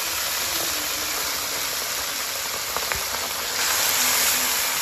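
Fish pieces deep-frying in a wok of hot oil: a steady, crackling sizzle that swells a little near the end as the pieces are turned, with a few faint clicks.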